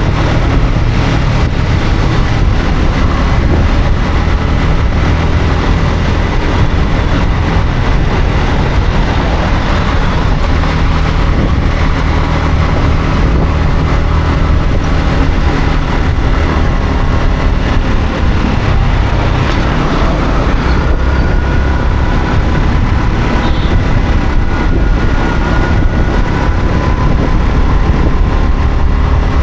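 Yamaha MT-15's 155 cc single-cylinder engine running steadily under way, mixed with road and traffic noise. A faint thin whine joins about two-thirds of the way in.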